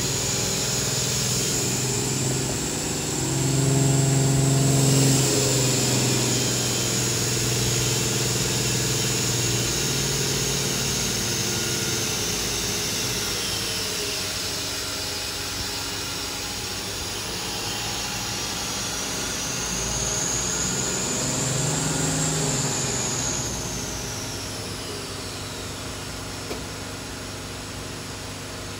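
Hurco VMX50 machining center's spindle running at high speed with a high-pitched whine over the machine's low hum. The whine drifts in pitch, then falls and fades near the end as the spindle slows to a stop.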